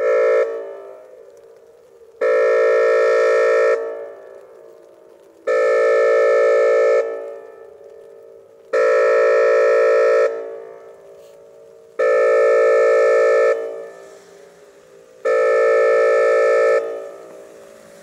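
Whelen WPS-2810 electronic outdoor warning siren sounding its air horn "all clear" signal. A short blast comes at the start, then five steady, loud horn blasts of about a second and a half each, about every three seconds. Each blast trails off in echo.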